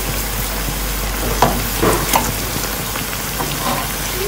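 Breaded bread-and-chocolate patties deep-frying in hot oil, with a steady sizzle. A slotted spatula knocks and scrapes against the pan a few times near the middle as the patties are turned.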